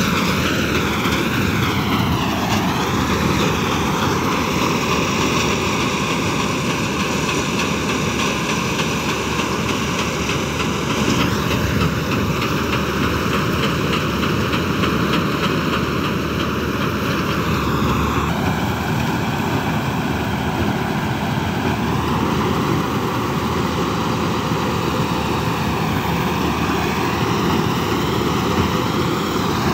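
Combine harvester running, a loud steady drone of its engine and threshing machinery, its tone shifting a few times.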